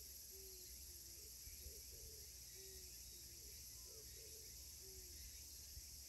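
Faint, steady chorus of insects such as crickets, with a soft, low call repeating about twice a second underneath.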